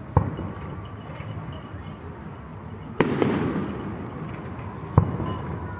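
Aerial fireworks exploding: three sharp bangs, right at the start, about three seconds in and about five seconds in, the middle one trailing off over about a second.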